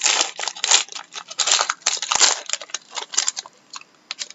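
Crinkling and rustling of packaging as a sealed pack of hockey cards is torn open and unwrapped, dense at first and tapering off into a few short rustles near the end.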